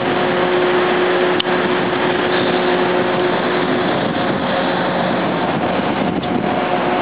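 Steady drone of marine engines and machinery mixed with wind and water noise, with a few faint held hum tones, one of which fades out about halfway through.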